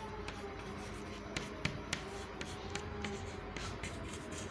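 Chalk writing on a chalkboard: light scratching with a few sharp taps as the chalk strikes the board, most of them between about one and two seconds in.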